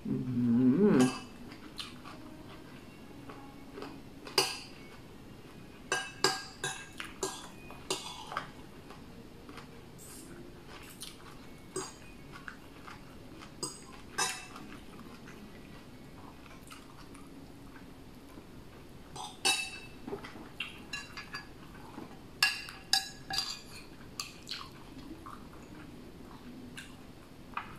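Metal spoon and fork clinking and scraping against dishes while eating, in scattered short clinks that come in bunches.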